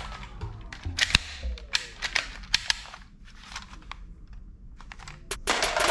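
Plastic toy guns being handled and triggered: a string of sharp clicks and snaps, irregularly spaced, with a short burst of noise near the end.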